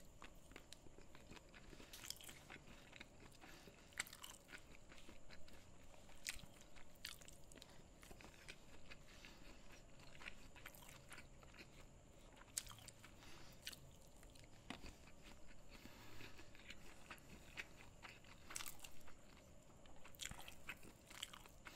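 Quiet, close-up chewing of a mouthful of red rice and curry eaten by hand, with a crisp crunch every second or two.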